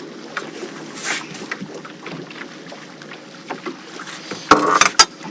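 Light handling and scuffling sounds, then a loud cluster of sharp knocks and slaps near the end: a loose crappie flopping in the boat.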